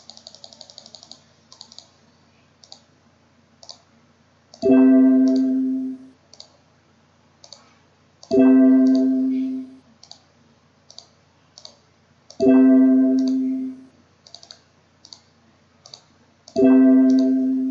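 Computer mouse clicks and a quick run of key or wheel clicks, broken four times by a loud electronic chime. Each chime is a single pitched note with a sharp start, fading over about a second, and comes round every four seconds or so.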